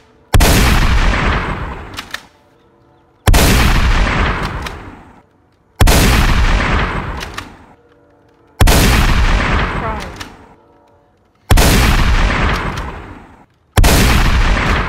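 Six gunshot sound effects, one about every two and a half to three seconds, each a sudden loud crack that dies away in a long echoing tail of about two seconds.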